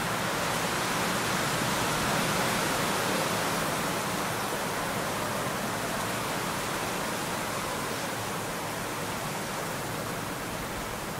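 Steady, even hiss of background noise with no distinct events; the grooming foxes make no sound that stands out.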